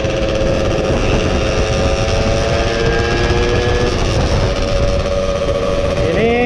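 Yamaha F1ZR's two-stroke engine running steadily under way at road speed, its note holding with a slight sag about four seconds in, over a heavy rumble of wind and road noise.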